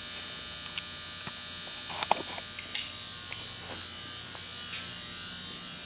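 Steady high-pitched electrical buzz, with a few faint clicks and taps about two seconds in.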